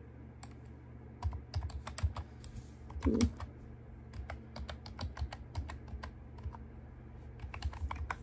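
Typing on a keyboard: quick irregular key clicks in short bursts with pauses between them. There is a short hum about three seconds in.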